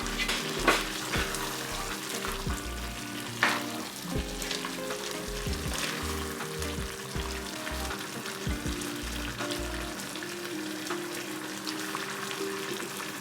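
Potato and cauliflower curry sizzling in a pan as a spoon stirs in the garam masala, with sharp clicks of the spoon against the pan about a second in and again a few seconds in. Soft background music runs underneath.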